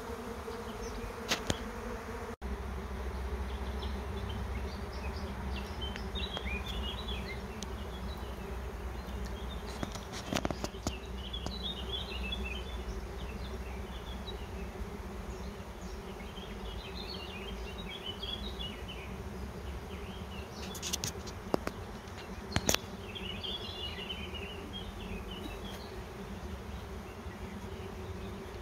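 Honeybee swarm in flight, thousands of bees buzzing in a steady drone: a colony swarming, flying out to find a new home.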